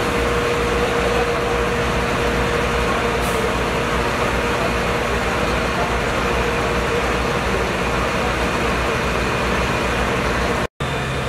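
Parked fire engine's motor running steadily at idle, a constant rumbling noise with a faint high whine through the first half that fades away. The sound drops out for a moment near the end.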